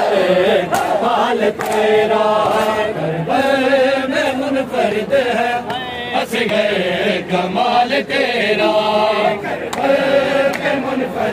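Noha, an Urdu mourning lament, chanted by a group of men, with the crowd's hands slapping bare chests (matam) in time, roughly once a second.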